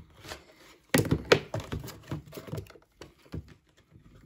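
Clicks and knocks of makeup being handled as a lip liner is set aside and a lipstick opened for swatching, with two loud thunks about a second in.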